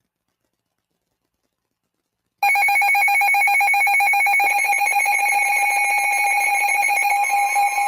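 Emergency Alert System attention signal: a loud, harsh two-tone alarm that starts abruptly about two and a half seconds in and holds steady. It announces an incoming tornado warning. Near the end a fainter, higher tone joins it.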